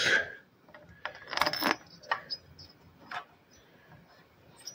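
Small steel bolts clinking and clicking against the finned aluminium cylinder head of a piston air compressor as they are picked up and set into their holes, with a cluster of clinks about a second and a half in and a few lighter ticks after.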